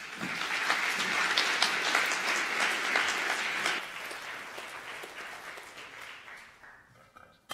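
Audience applauding, full for about four seconds and then dying away over the next three.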